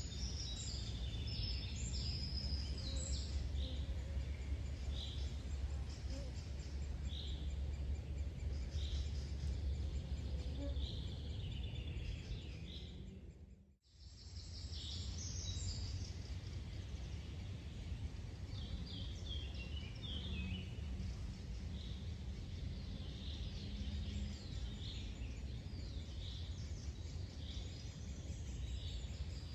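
Songbirds singing in a forest: short high notes repeated every second or two, some in quick trilled runs, over a steady low rumble. Just before the middle the sound fades out almost to nothing and fades back in.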